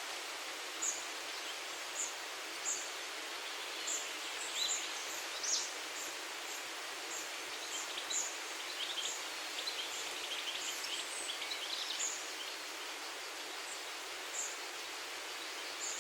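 Tree leaves rustling steadily in a breeze, with birds singing: a short high chirp repeated about once a second throughout, and a busier twittering in the middle.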